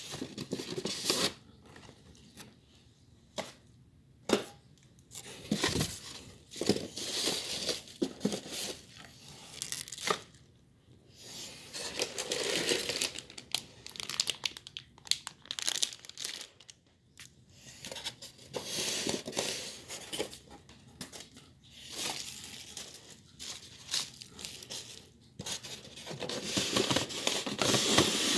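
Wrapping being torn and crumpled by hand: irregular bursts of rustling and crinkling with short pauses between them, loudest near the end.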